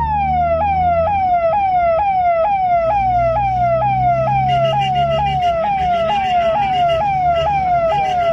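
Siren sound effect in a fast-repeating yelp: each sweep jumps up and slides down, about two and a half a second, over low steady tones, with more tones joining about halfway through.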